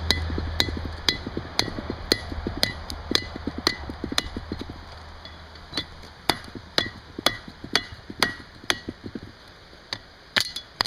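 Blacksmith's hammer striking a hot steel bolt on an anvil, about two ringing blows a second, bending the bolt's head. The blows pause for a moment about halfway through, then resume.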